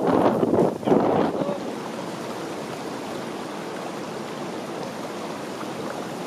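Wind buffeting the microphone in gusts for about the first second and a half, then the steady rush of a flowing stream.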